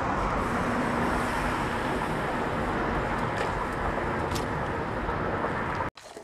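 Loud, steady roar of road traffic by a wide street, with two faint sharp ticks in the second half. It cuts off suddenly near the end.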